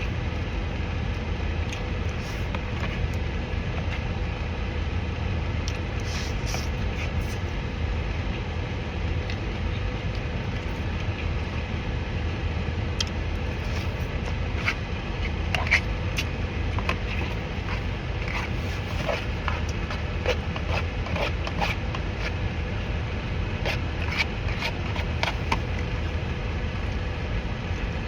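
Close-up eating noises, small clicks and crunches of chewing coconut shrimp, scattered through a steady low rumble.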